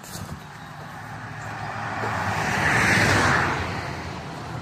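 A vehicle passing on a nearby road: its tyre and engine noise swells to a peak about three seconds in, then fades.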